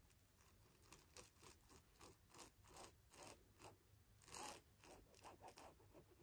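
Faint scratching of a ballpoint pen drawing on cloth: a quick run of short strokes, with a longer, louder stroke about four and a half seconds in.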